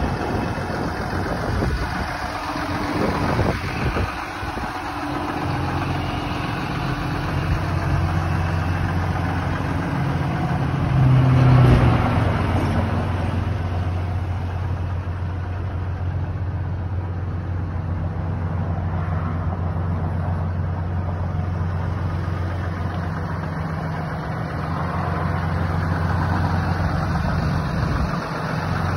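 Ram 5500 bucket truck's engine idling steadily, with a brief swell in loudness about eleven seconds in.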